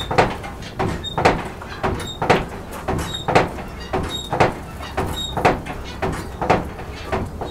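Hand-worked forge bellows pumped by its overhead lever about once a second, each stroke creaking and squeaking as it blows the forge fire.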